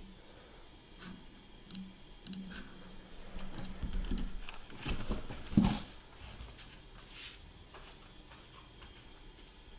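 Scattered clicks of a computer mouse and keyboard, with a dull knock on the desk about five and a half seconds in.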